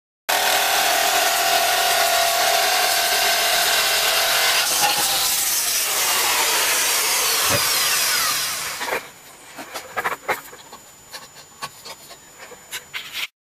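Jigsaw cutting through a 10 mm compact laminate panel, running steadily for about eight and a half seconds, its tone changing about halfway, then stopping. After it stops, a few light knocks and clicks as the panel is handled.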